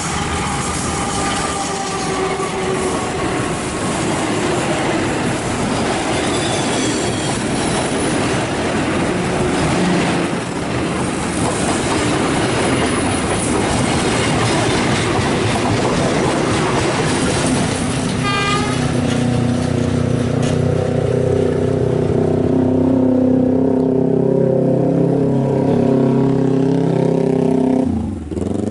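A train passing close by: a loud, steady rushing rumble of wheels on the rails, with a horn at the start. A low, steady engine drone takes over in the last several seconds.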